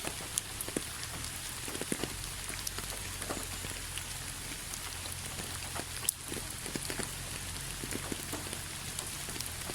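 Rain falling, with drops tapping irregularly on a surface, some taps giving a short ringing note; one sharper tap about six seconds in.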